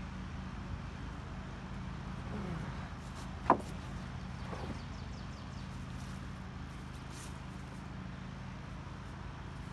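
A steady low mechanical hum, with one sharp knock about three and a half seconds in and a softer knock a second later.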